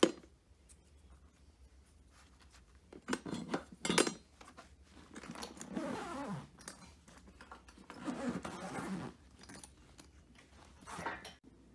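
Handling noise from a loaded tool backpack: the fabric rustling and the contents shifting in four short bursts, after a sharp click at the very start.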